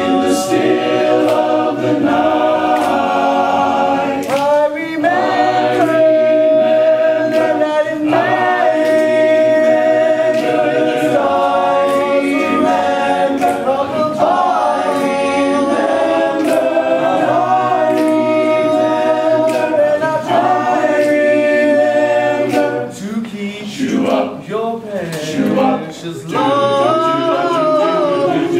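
Men's barbershop chorus singing a cappella in close four-part harmony, holding chords that change every second or so. The singing drops softer for a few seconds late on, then the full chorus comes back in.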